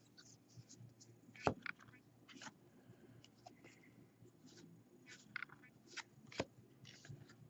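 Faint scrapes and short clicks of baseball trading cards being handled and flipped one after another, the sharpest click about one and a half seconds in.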